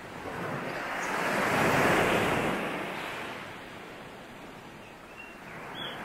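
Sea waves on a beach: a wave surges up from the start, is loudest about two seconds in, and washes back down, with the next wave building near the end. A faint short bird chirp comes just before the end.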